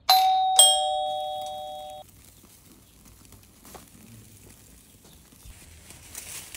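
Doorbell chime ringing ding-dong: two notes about half a second apart, the second lower, both ringing on and cutting off together about two seconds in.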